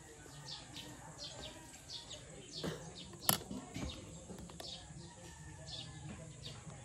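Small birds chirping over and over, short high calls, with one sharp click about three seconds in.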